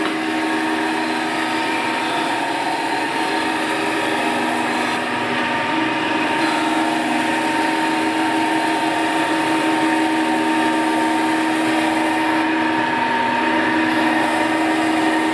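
Surface grinder running, its wheel grinding the V-guideways of a machine-tool table under flood coolant: a steady whine and hum over a constant hiss.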